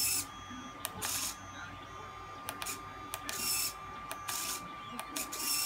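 Small hobby servo motor on a 3D-printed gauntlet whirring in several short bursts as it is driven back and forth by its button, with light clicks between the movements.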